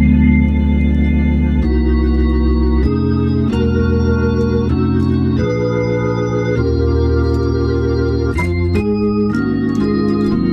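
Organ-like patch in the Omnisphere software synthesizer played as a run of held chords, the chord changing every second or so.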